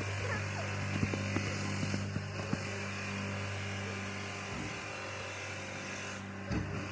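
A steady low machine-like hum, with a basketball's sharp knocks on the hoop and pavement in the first few seconds and a heavier thump about six and a half seconds in.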